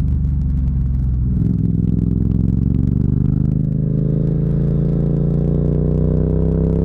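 Yamaha MT-07's parallel-twin engine running under load, its pitch rising slowly and steadily as the bike accelerates.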